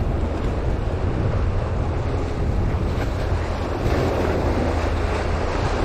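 Wind buffeting the microphone over ocean waves breaking and washing against the rocks of a jetty, the wash swelling about four seconds in.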